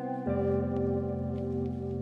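Background music: soft, sustained ambient chords, with a change of chord about a quarter second in.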